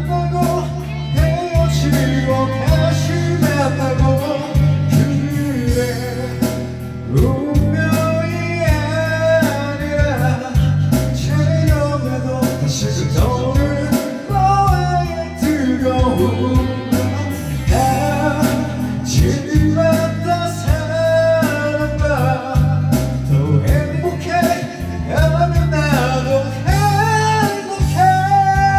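A band's song: a singer over guitar, bass and drums.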